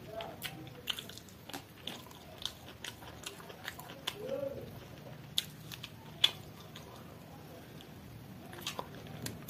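Close-miked chewing and mouth clicks of a person eating chicken biryani by hand, irregular, about one or two a second. A sharp click about six seconds in is the loudest.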